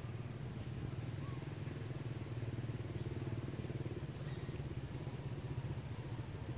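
A motor engine running steadily at low revs, a low even drone.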